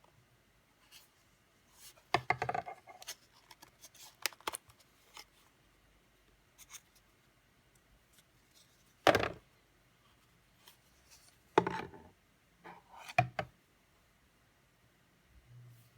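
Unboxing handling noise: scattered clicks, taps and short rustles of packaging and small parts being picked up and put down, with a few louder knocks.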